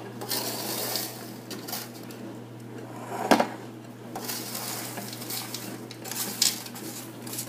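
A spatula scraping roasted pumpkin seeds across a metal baking sheet into a ceramic bowl, in several separate scrapes, with the seeds sliding and rattling off the tray. A single sharp knock comes a little over three seconds in.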